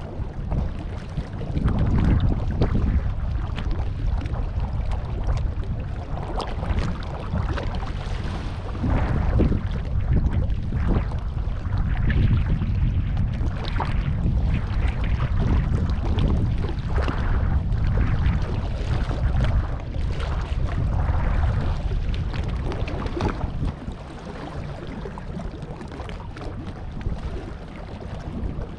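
Wind buffeting the microphone in uneven gusts, over harbour water washing against the sandstone rocks; the gusts ease near the end.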